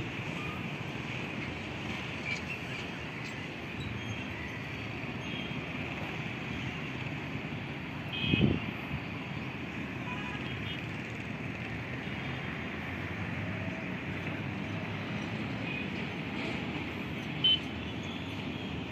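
Steady outdoor rumble of distant road traffic mixed with wind on the microphone, with one short, loud bump about eight seconds in.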